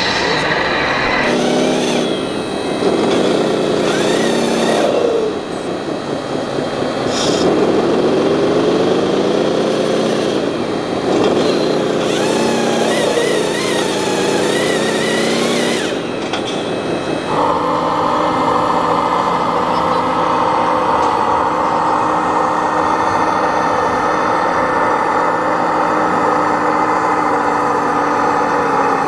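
Radio-controlled scale model vehicle's motor running, its pitch rising and falling again and again with the throttle, then settling into a steady even note about seventeen seconds in.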